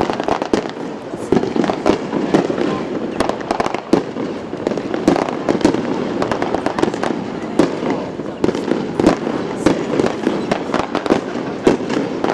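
Aerial fireworks going off in a dense, continuous barrage of bangs and crackles, several reports a second, with no pause.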